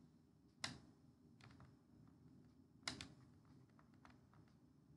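Sharp clicks of computer input at a desk: two louder clicks about two seconds apart, with a few fainter ticks between them, over near silence.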